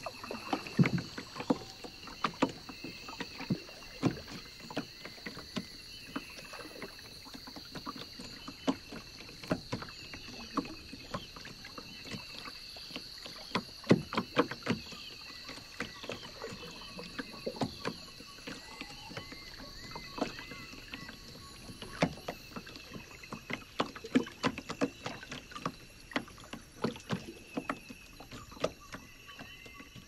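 Wooden paddle dipping, splashing and dripping beside a dugout canoe, with irregular sharp knocks and drips. A steady high-pitched drone runs underneath, with a few short chirps about two-thirds of the way through.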